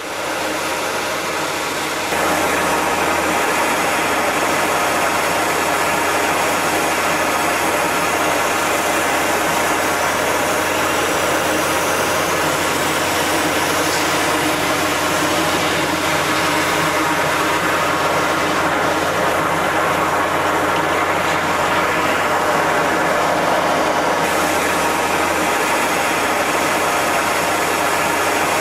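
High-pressure water jetting: a reciprocating plunger pump running steadily under the hiss of a water jet driven through a rotating pipe-cleaning nozzle inside a pipe. The sound gets louder just after the start and again about two seconds in, then holds steady.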